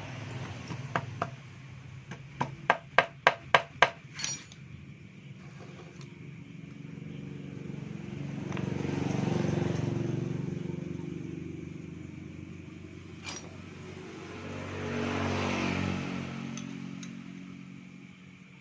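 A rubber mallet knocks six times, about three a second, on a Yamaha NMAX scooter engine part to loosen it for removal, with one more knock just after. Later two motor vehicles pass, each swelling and fading over a few seconds.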